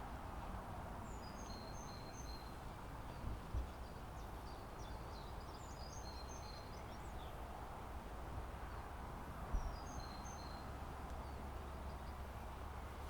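Steady wash of the sea with birds calling over it, short high repeated notes coming in three bouts. A low wind rumble on the microphone lies beneath, with a couple of brief bumps.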